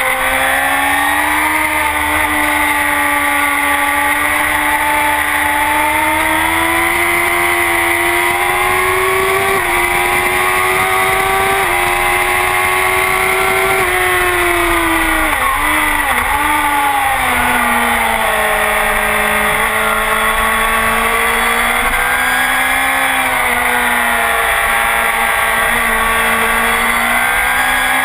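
Honda CBR1000RR inline-four with a full Akrapovic exhaust running hard on track. The engine note climbs over the first ten seconds or so, falls with a few quick wavers about halfway through, then rises and falls again, over a low rush of wind.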